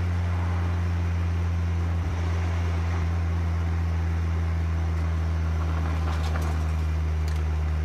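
Car engine and road noise while driving at a steady, low speed: an even low drone that holds constant pitch, with tyre and wind hiss over it and a few faint ticks near the end.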